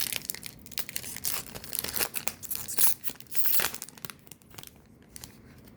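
Foil trading-card pack wrapper crinkling and tearing, a dense run of crackles for about four seconds that then dies down to quieter handling.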